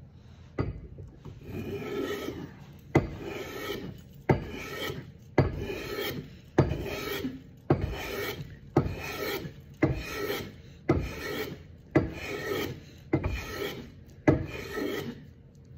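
A small hand plane taking repeated shaving strokes along a wooden handle blank: about a dozen strokes, roughly one a second, each starting with a sharp click followed by the scraping hiss of the blade cutting.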